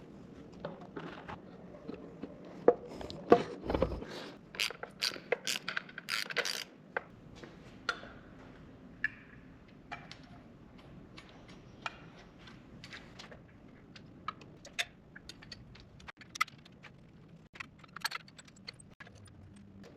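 Hand tools and metal parts clicking and clinking irregularly as parts are bolted onto a 12-valve Cummins diesel engine during assembly, with a heavier knock about three to four seconds in.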